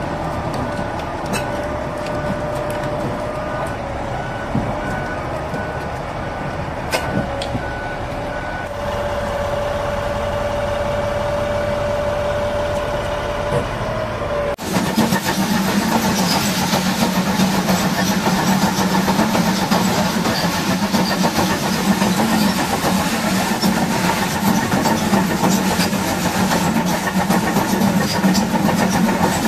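Heavy diesel machinery running steadily with a high whine. About halfway through, the sound changes abruptly to a louder, rougher engine sound.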